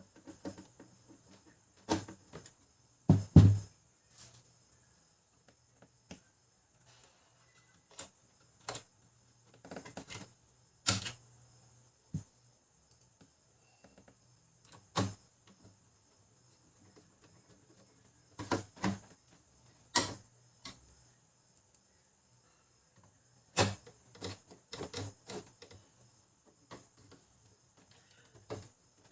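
Irregular clicks and knocks of plastic printer parts being handled and fitted back together during reassembly of a laser printer's gear drive, with the loudest double knock about three seconds in.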